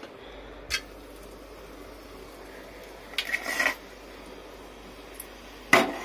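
Metal ladle knocking and scraping against a large aluminium cooking pot: a light clink about a second in, a short scraping rattle past halfway, and a loud clang near the end. A steady low hum runs underneath.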